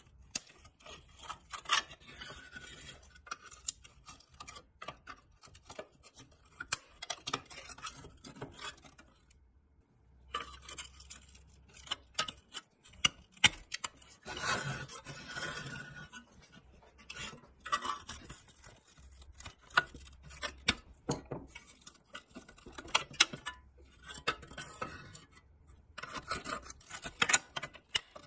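A flat screwdriver pries and scrapes at the seams of a rusted pressed-steel toy truck body, with sharp metal clicks and scraping as loosened steel parts are shifted and rubbed by hand.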